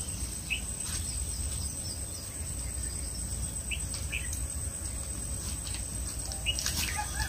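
Riverside ambience: a steady low rumble of wind on the microphone under a continuous high-pitched insect drone, with a few short bird chirps about half a second, three and a half and six and a half seconds in.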